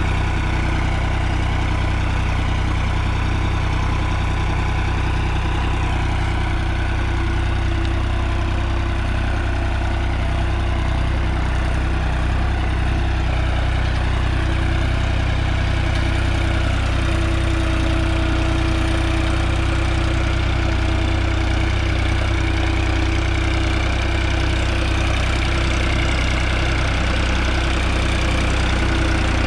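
New Holland 3630 TX Plus tractor's three-cylinder diesel engine running steadily under load at about 1700 rpm, pulling a disc harrow through ploughed soil.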